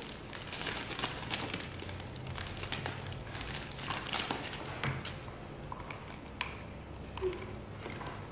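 Scattered light taps and clicks with some plastic crinkling from handling small Christmas ornament balls and their plastic packaging.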